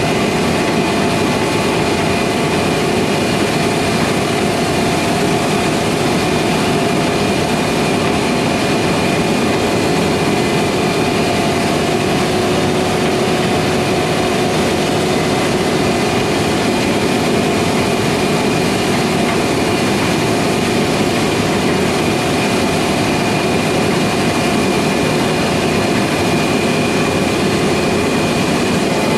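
Heavy farm machinery running steadily: a constant engine drone with several steady whining tones over it.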